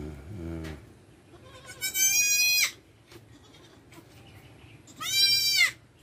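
Newborn goat kid bleating twice, two high-pitched cries each under a second long, the second rising and then falling. A fainter, brief low call comes in the first second.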